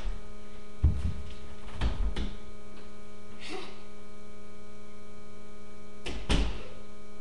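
Steady electrical hum, broken by a few dull thumps about a second in, around two seconds in and near the end, with a brief soft rustle in between.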